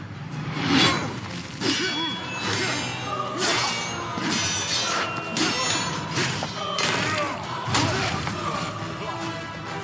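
Sword-fight sound effects: about ten metallic clashes of swords and shields ringing out, with swishes and thuds between them, over background music.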